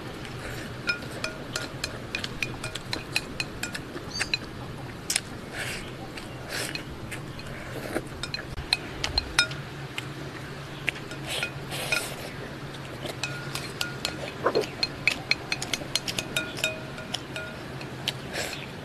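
Wooden chopsticks clicking and scraping against a glazed ceramic bowl as rice is shovelled from the bowl into the mouth. There are many short, irregular clinks.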